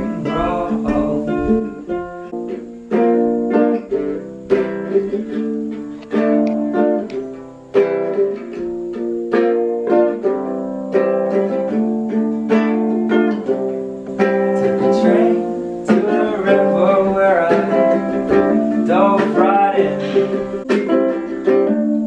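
Music: a small acoustic guitar strummed and plucked, with a man singing along, most clearly in the second half.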